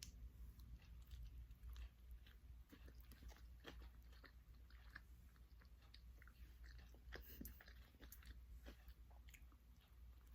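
Faint chewing and biting of a sandwich: soft, irregular clicks and mouth sounds over a low steady hum.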